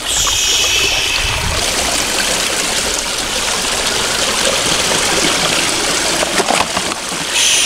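Small stream running steadily over rocks and under a skin of ice.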